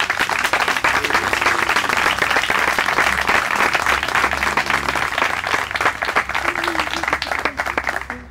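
A crowd applauding, a dense patter of many people's hand claps that thins and dies away near the end.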